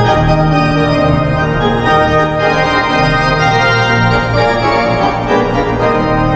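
Organ music from an NHL team's goal song: sustained chords that change every second or so.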